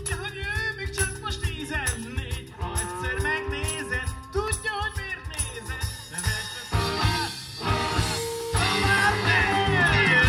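Live rock band with electric guitars, acoustic guitar, drum kit and congas playing, a man singing over it. The backing is sparse at first; the full band comes in louder about seven seconds in and swells again near the end.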